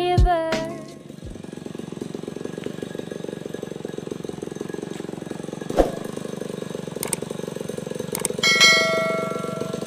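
The end of an intro music track, then a two-stroke chainsaw engine idling with a rapid, steady putter. There is a sharp click about six seconds in and a short ringing tone near the end.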